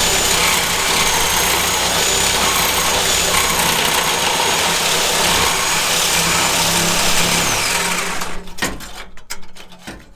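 Reciprocating saw cutting through the rusty exhaust at the muffler, its motor running steadily with a high whine over the rasp of the blade. The saw stops about eight seconds in, followed by a few short knocks.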